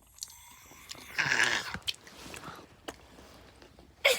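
A child's short, breathy vocal sound, like a stifled squeal or whispered giggle, about a second in, with a few faint clicks.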